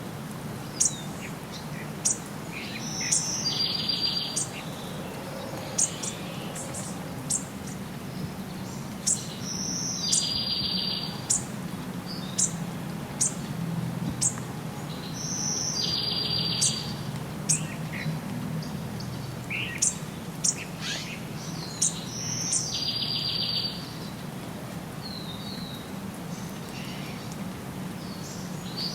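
Songbirds singing. One bird repeats a short phrase ending in a rapid trill about every six to seven seconds, and sharp single chirps sound in between, over a faint steady low rumble.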